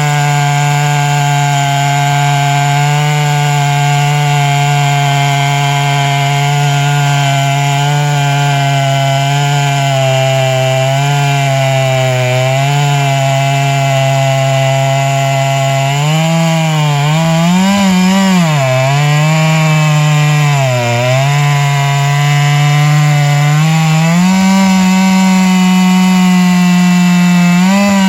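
Two-stroke chainsaw running at high speed while cutting wood. The engine note holds steady at first, then dips and recovers several times in the second half as the saw bogs under load in the cut.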